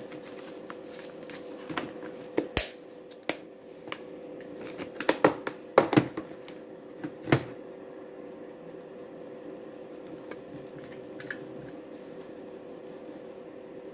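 Paper seed packets rustling and a hard plastic organizer drawer clicking and knocking as it is handled and slid back into its case. The clicks come in a quick run during the first half, thickest a little past the middle, then stop.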